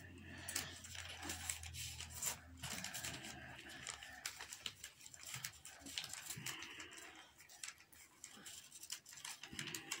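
Sheet of paper rustling and crinkling as hands fold and crease it into an origami flapping bird, in many short, irregular crackles.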